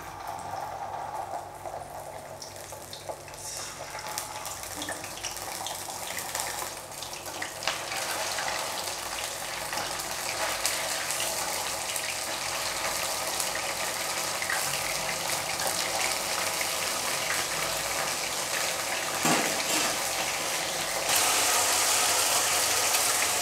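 Batter-coated vegetable 'fish fry' pieces deep-frying in hot oil in a steel kadai: a crackling sizzle that builds steadily as the pieces go in and cook, growing louder near the end.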